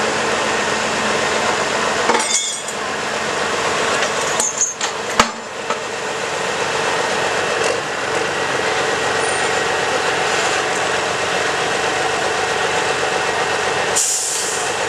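Turbocharged International pulling tractor's diesel engine idling steadily while hooked to the sled before a pull. A few sharp knocks come about two and five seconds in, and a brief hiss comes near the end.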